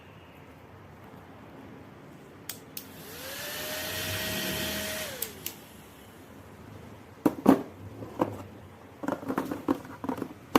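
Battery-powered mini handheld vacuum cleaner switched on with a click: its small motor whine rises, runs steadily for about two seconds and winds down as it is switched off. A series of sharp clicks and knocks follows.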